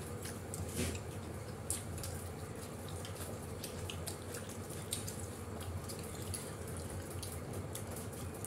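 Quiet eating sounds: fingers tearing roti and scooping curry on plates, with chewing, heard as many small irregular clicks and smacks over a steady low hum.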